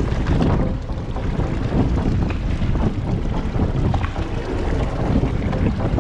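Wind buffeting the microphone aboard a small fishing boat at sea: a heavy, uneven rumble.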